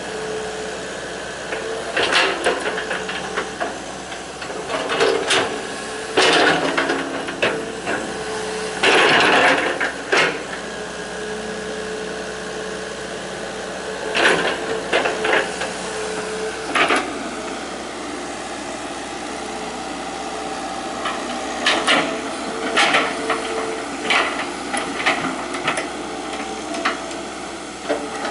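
Hitachi EX120 hydraulic excavator's diesel engine running steadily, with clusters of sharp knocks and clatter from the bucket and arm working earth coming every few seconds.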